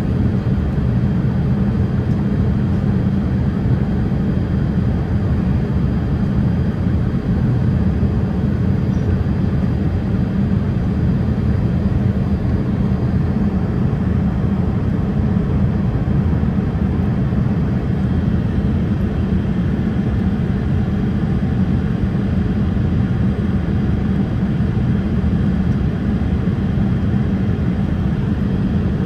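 Steady cabin noise inside a Boeing 787-8 airliner in flight: an even, deep rush of airflow and engine rumble that holds constant throughout.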